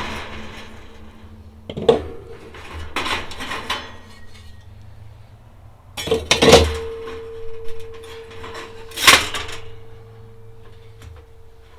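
Sheet-metal parts of a kerosene heater being handled and knocked together: a few clanks and clatters, the loudest about six and a half and nine seconds in, and after the first of these a steady ringing tone that hangs on for several seconds.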